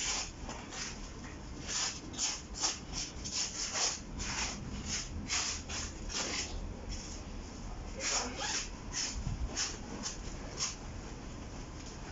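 Stiff firefighter turnout-suit fabric rustling as the jackets are handled and pulled on, in a quick, irregular run of short swishes.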